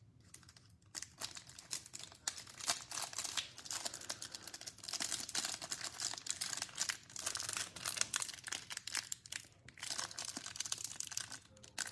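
Thin clear plastic wrapper around a stack of trading cards being crinkled and torn open by hand: a dense, irregular crackle of plastic with small sharp snaps, quieter for the first second.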